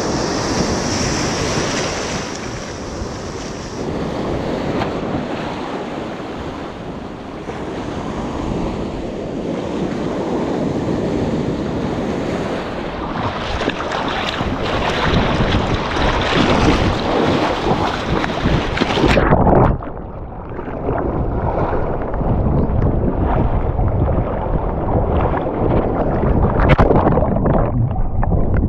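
Waves breaking and washing in foaming surf, with wind buffeting the microphone. About two-thirds of the way through, the camera goes under the water and the sound abruptly turns muffled: a low underwater rumbling with scattered knocks.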